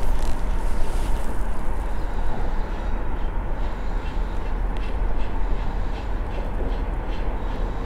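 A steady rushing noise, heaviest in the low end, with faint light ticks every half second or so in the middle seconds.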